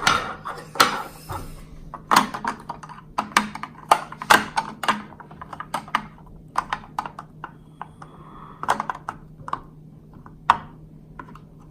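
Plastic Lego pieces clicking and knocking as they are handled and pressed onto a built model, in irregular sharp clicks.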